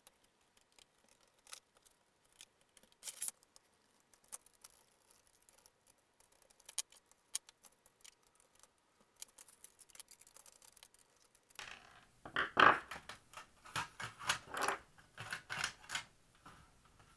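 Small clicks, ticks and scrapes of a screwdriver and fingers working on a laptop motherboard and its metal frame. From about twelve seconds in comes a louder cluster of knocks and rattles as the board is handled and lifted out of the chassis.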